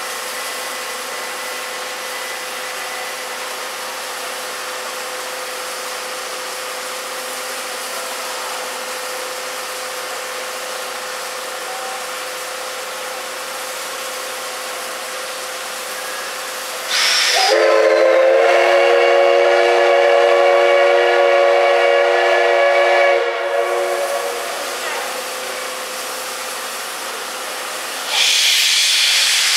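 D51 498 steam locomotive standing with a steady hiss of steam, then its steam whistle blown in one long blast of about six seconds, the departure whistle. Near the end a sudden loud burst of steam hiss starts as steam is blown from the cylinders at the start of departure.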